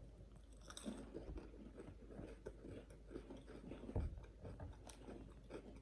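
Faint chewing and crunching of Koala's March chocolate-filled biscuit cookies: irregular small crunches, with one louder crunch about four seconds in.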